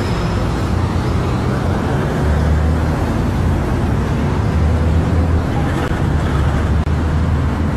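Steady highway traffic noise with a low, continuous engine hum from heavy vehicles running close by.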